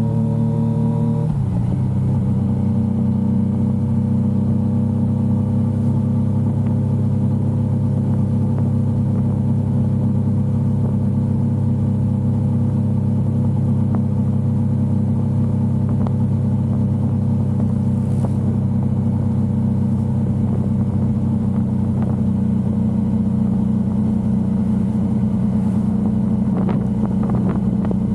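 Yamaha XSR900's inline-three engine running under way, its pitch stepping down about a second in and then holding a steady drone.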